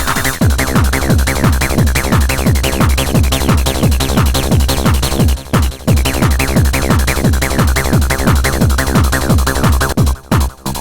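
Hard trance/techno dance music with a fast, pounding kick-drum beat and a deep bass; the beat drops out for a moment about five and a half seconds in and breaks up in short stutters near the end.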